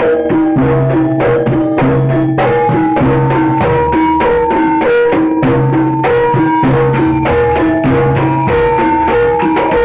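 Jaranan music: a Javanese percussion ensemble playing a fast, steady beat of drums and ringing pitched metal percussion over a low sustained tone.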